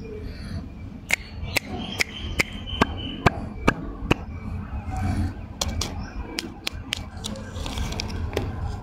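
A run of sharp, evenly spaced clicks, about two or three a second, with a short break in the middle, then the rustle of a paper lollipop wrapper being picked up and handled near the end.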